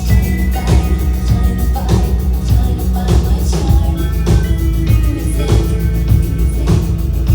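Live pop-rock band music: a drum kit keeping a steady beat under sustained keyboard or guitar tones and a heavy bass.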